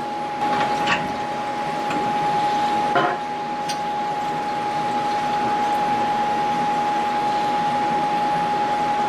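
A steady, unbroken high whine over a hiss from a small CNC mill running in the shop. A few knocks come in the first three seconds as the machined aluminium angle is handled.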